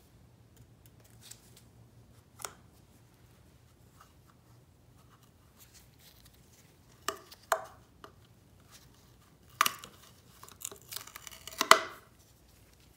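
Scattered clicks and knocks of engine parts and tools being handled during an engine teardown: a single knock a couple of seconds in, two more past the middle, and a busier run of clatter near the end, the loudest just before it stops.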